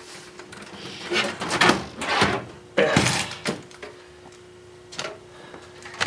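Sheet-metal computer tower case being handled and laid down on its side: scraping and sliding sounds, then a single thunk just before three seconds in, followed by lighter knocks.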